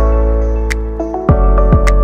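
Background music: sustained chords over a deep bass, with two deep beats in the second half.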